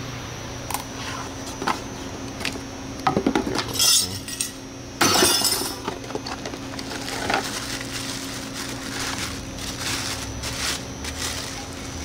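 Cardboard speaker boxes being opened and a speaker in a plastic bag handled: scattered knocks and scrapes, the loudest a few seconds in, then crinkling rustles toward the end. A steady low hum runs underneath.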